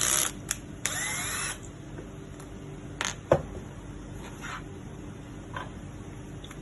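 Small parts being handled: two short scraping, hissing rasps near the start, then a sharp click a little past three seconds in, with a few faint ticks.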